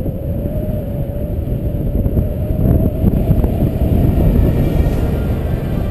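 Wind rushing over the microphone of a camera carried by a gliding eagle: a loud, steady low roar with buffeting, and a faint wavering hum above it.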